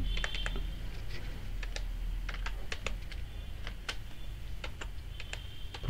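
Typing on a computer keyboard: separate key clicks at an uneven pace of a few a second, over a low steady hum.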